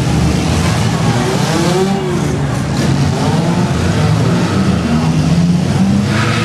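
Demolition derby car engines running and revving, several at once, their pitch rising and falling.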